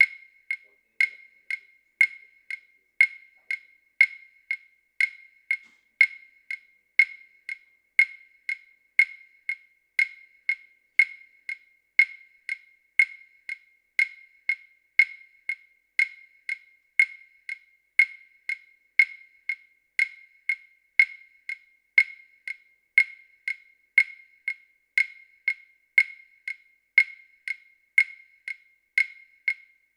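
Steady, mechanical-sounding ticking at about two sharp, high clicks a second, some stronger than others, like a clock or metronome.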